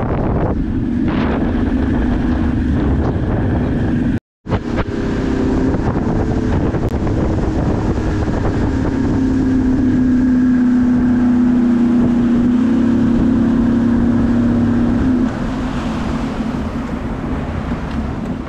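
Bass boat's outboard motor running steadily under way, with wind buffeting the microphone and water rushing past the hull. The sound cuts out for a moment about four seconds in, and the engine note falls away about fifteen seconds in as the boat slows.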